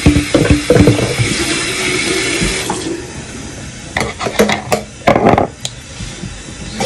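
Kitchen tap running into the sink, shut off about three seconds in. A few clatters of a bowl and utensils follow, and the water comes back on near the end.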